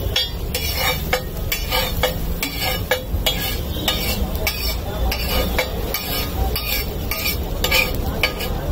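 Metal spatula scraping and tapping on a flat iron tawa as egg-yolk masala is spread and fried, about two strokes a second, with the masala sizzling between strokes.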